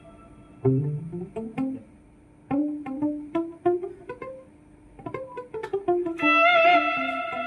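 Music: a melody of plucked string notes, with a held, wavering higher tone joining in near the end.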